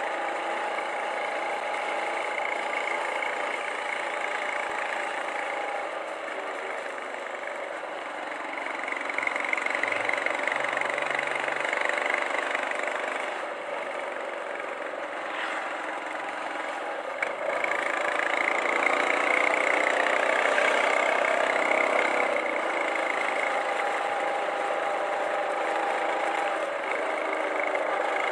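Royal Enfield Classic 350's single-cylinder engine running on the road, its exhaust heard from a car following close behind, mixed with steady road and traffic noise. It grows a little louder about a third of the way in and again just past halfway.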